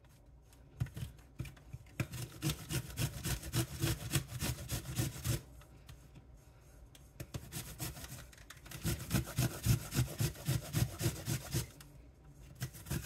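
Green apple being grated by hand on a stainless-steel grater: quick repeated rasping strokes in two runs, with a pause of about three seconds between them.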